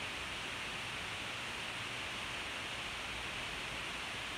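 Steady, even hiss with nothing else standing out: the recording's background noise.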